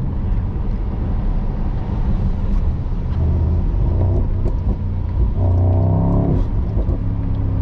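Mercedes-AMG 4.0-litre V8 biturbo engine of an SL55 running steadily while driving. Its note swells briefly about five and a half seconds in.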